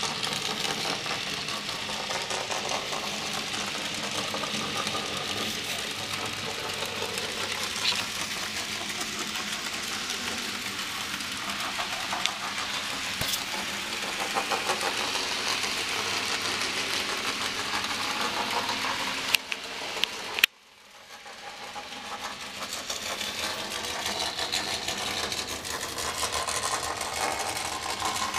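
Model railway train, an Ivatt Class 2MT 2-6-0 locomotive with coaches, running on layout track: a steady mechanical whirring with rapid clicking from the motor and wheels. About two-thirds of the way through come two sharp clicks, then the sound drops away suddenly and builds back up over a few seconds.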